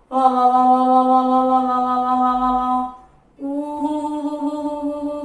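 A woman's voice singing two long held vowel notes, the second one slightly higher and pulsing as a hand pats over the open mouth, giving a wavering 'wa-wa' sound.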